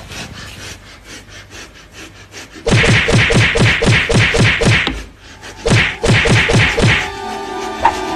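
Rapid run of slaps, about five a second, as a cat bats a man's face with its front paw, in two bursts with a short break between.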